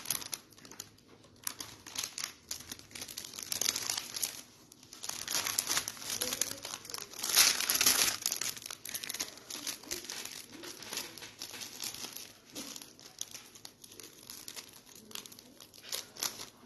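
Clear plastic bag crinkling and rustling as it is handled, in a run of irregular crackles that is loudest about seven to eight seconds in.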